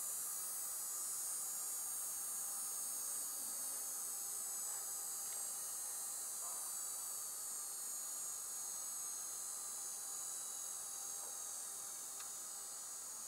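Vertical gyroscope rotor from a Boeing 737, model 314, coasting down with its power off. It is a high-pitched whine of several close tones, slowly falling in pitch and fading.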